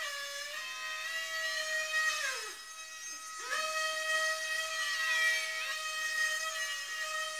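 Micro hovercraft's motors and propellers, taken from a Syma 3-channel micro helicopter, whining at a steady high pitch. About two and a half seconds in the whine slides down and fades as the throttle is let off, then about a second later it slides back up and holds steady again.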